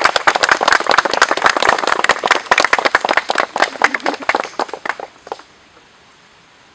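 A small crowd applauding, many hands clapping quickly and unevenly; the clapping dies away about five seconds in.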